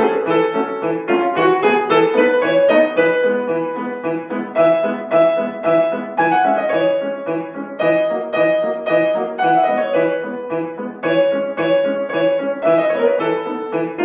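Solo piano playing continuously, a flowing melody over repeated notes and rising runs.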